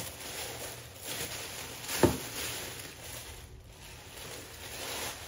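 Tissue paper and paper wrapping rustling and crinkling as hands pull them out of a cardboard shoe box, with one sharp tap about two seconds in.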